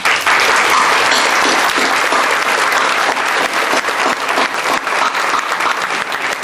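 An audience applauding, breaking out all at once and holding steady, easing off slightly near the end.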